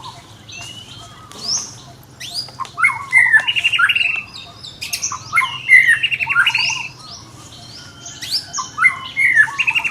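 High-pitched animal calls: sweeping squeaks and chirps, with three bursts of fast chattering trills, the loudest about six seconds in.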